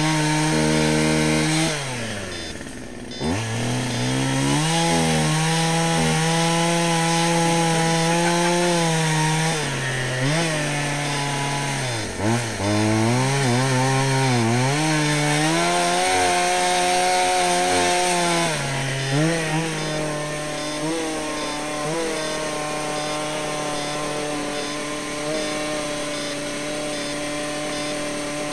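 Chainsaw revving and cutting into a tree trunk, its pitch dropping and recovering several times as it bogs down in the cut, then running a little quieter and steadier in the last third.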